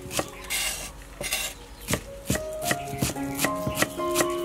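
Knife chopping spring onion stalks on a wooden chopping board: a string of sharp taps, scattered at first, then about three a second in the second half.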